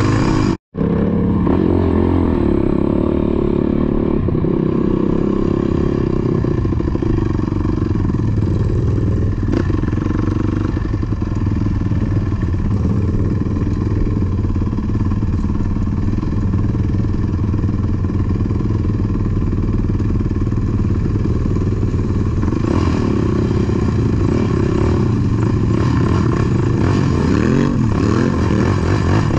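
ATV engine running steadily, with a split-second gap in the sound just under a second in.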